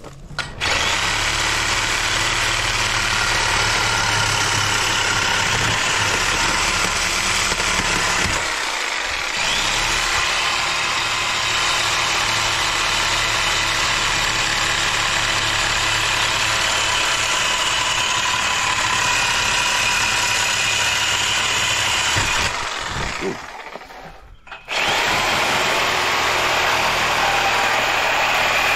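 A power tool running loud and steady. It stops for about two seconds near the end, then runs again.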